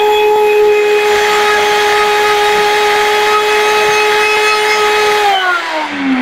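Nutribullet blender running at full speed, blending raw cashews and broth into cashew cream, with a steady high motor whine. About five seconds in it is switched off and the whine falls in pitch as the motor spins down.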